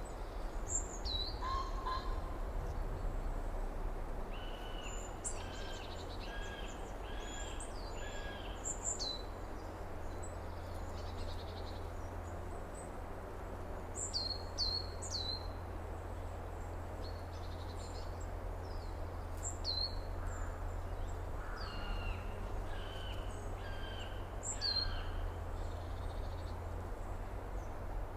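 Several birds singing over a steady low rumble: quick high chirps that drop in pitch, and short runs of about four evenly spaced whistled notes roughly a second apart.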